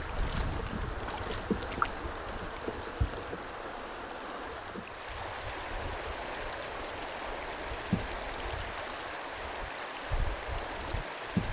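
Shallow stream running over stones, with a few splashes and short knocks as hands turn stones over in the water.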